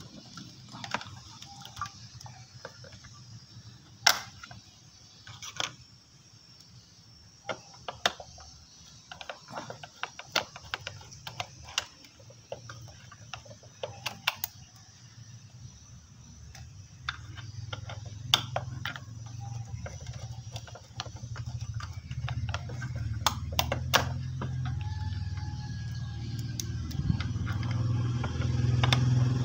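Plastic wiring connectors on an electric bicycle's controller being pulled apart by hand: scattered sharp clicks and small rattles of the wires. From about halfway a low engine rumble builds, loudest near the end.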